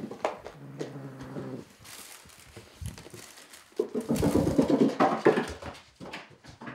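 A gray tabby kitten's paws thudding on bare wooden stairs as it runs down them with a toy mouse in its mouth, loudest about four to five seconds in. About a second in there is a short low steady call from the kitten.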